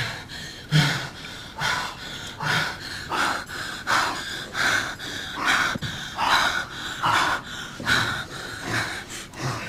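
Heavy, rhythmic breathing and gasps of a couple having sex, one breath a little more often than once a second, some with a soft voiced moan.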